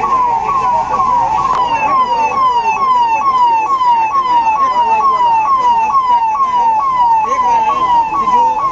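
Police siren wailing in a fast repeating cycle, each cycle a quick downward sweep in pitch, about two a second.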